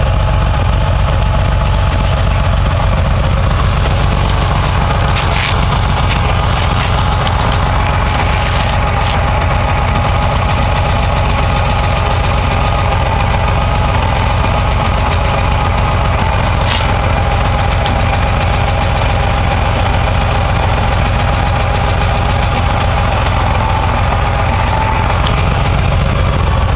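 Porsche 911 SC 3.0-litre air-cooled flat-six idling, with a steady high-pitched squeal from the transmission as the clutch pedal is worked. It is a really bad sound that the owner puts down to the transmission, and it appeared after the engine was washed.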